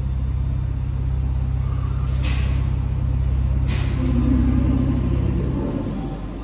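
Alstom NS-93 metro train standing at the platform with a steady low hum that falls away near the end. Two short hissing bursts come about two and three and a half seconds in.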